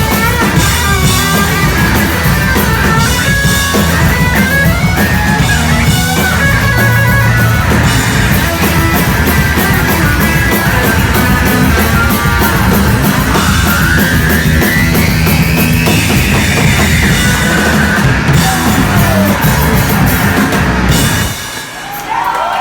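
Loud garage-punk rock with a pounding drum kit and distorted electric guitars, a long guitar whine rising and falling about two thirds of the way through, and a brief drop in loudness near the end.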